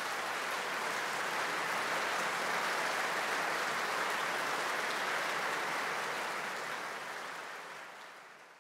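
Audience applauding steadily, then fading out over the last couple of seconds.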